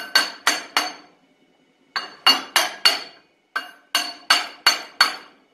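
Hammer striking the clutch on a vintage Ski-Doo Rotax engine in quick taps, about three a second, to break it loose from the tapered crankshaft. Each blow is sharp with a short metallic ring. The taps come in three runs of four or five, with short pauses between.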